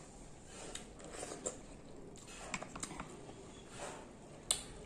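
Close-up eating sounds: wet chewing and mouth smacks on mango, and fingers tearing the peel off an orange. A few small sharp clicks, the sharpest near the end.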